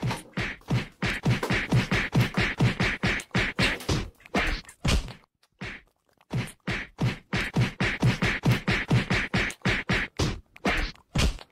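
A fast, even run of dull slapping knocks, about six a second. It breaks off for about a second near the middle, then starts again.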